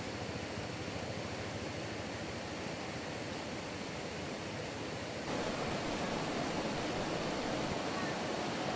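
Steady rushing of flowing river water, an even noise with no distinct events; it gets a little louder about five seconds in.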